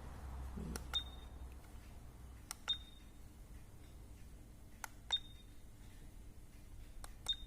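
Buttons on a kids' digital video camera clicking, each press answered by the camera's short high key beep, four times at intervals of about two seconds, as the saved pictures are paged through.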